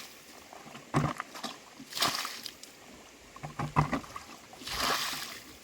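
Water splashing and sloshing in several separate sudden strokes, with a longer rushing splash near the end.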